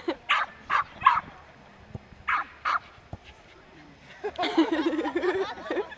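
Small dog barking in short, sharp barks: three quick barks, a pause, then two more, followed by a longer jumble of sound near the end.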